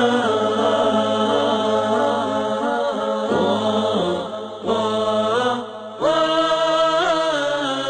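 Vocal chanting in long, wavering held notes that glide between pitches, with two brief pauses about four and a half and six seconds in.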